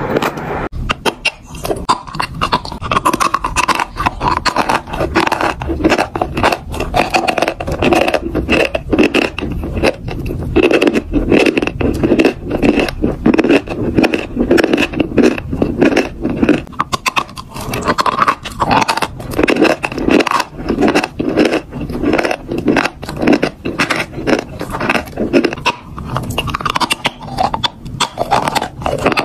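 Dry chalk being bitten and chewed right at the microphone: a continuous run of crisp crunches and crumbly crackles.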